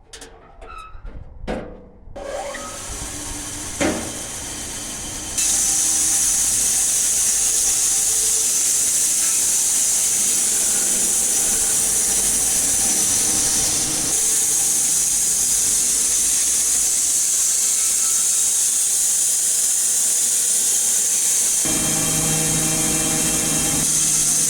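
Band sawmill starting up after a few knocks, then running loud and steady with a strong hiss. Its sound grows heavier and lower about three seconds before the end.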